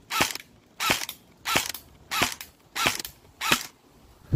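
AR-style airsoft rifle firing single shots in a steady string, about one every two-thirds of a second, seven in all with the last right at the end.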